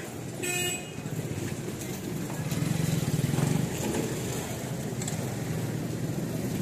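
Low rumble of a motor vehicle's engine running close by, swelling to its loudest about three seconds in and then carrying on. A brief high-pitched tone sounds about half a second in.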